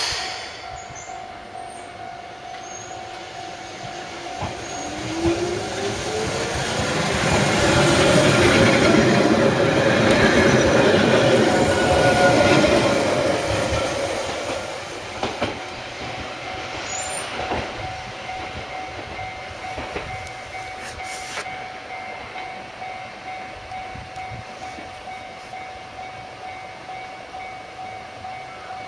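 Keihan Ishiyama-Sakamoto Line train passing over a road level crossing. It builds up over several seconds, is loudest for about five seconds in the first half, then fades. Through the whole pass a level crossing bell rings with steady, regular strokes.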